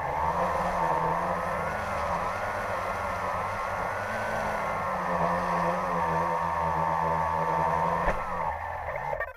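Quadcopter drone's electric motors and propellers whining close to its onboard camera, the pitch wavering up and down as it manoeuvres low. About eight seconds in there is a knock as it touches down, then the motors wind down in pitch and cut off.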